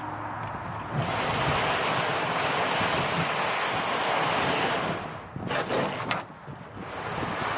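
Rushing river water with wind buffeting the microphone; the noise comes in suddenly about a second in. A few quick knocks sound a little past halfway, in a brief lull, before the rushing returns.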